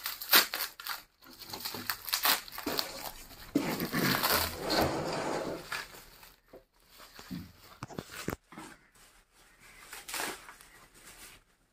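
Bubble-wrap packaging crinkling and rustling in irregular bursts as it is handled and pulled open by hand. It quietens toward the end.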